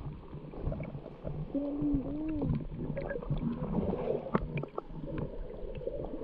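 Muffled underwater sound from a camera held below the surface in shallow sea: a low gurgling rumble with scattered short clicks and crackles, and a brief muffled, wavering pitched sound, like a voice heard through water, about a second and a half in.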